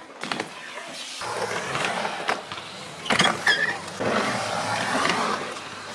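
Skateboard wheels rolling on a vert ramp with a steady rumble, with a few sharp clacks of the board about two and three seconds in.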